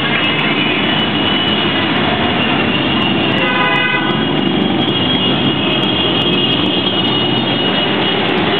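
Many motorcycles riding past together, their engines running in a loud, steady mixed drone. A vehicle horn gives a short toot a little before halfway.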